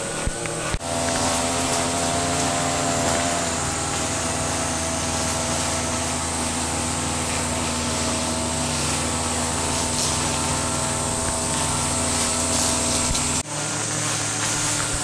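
Engine brush cutter running steadily, with a constant high buzz of cicadas singing behind it. The sound changes abruptly about a second in and again near the end.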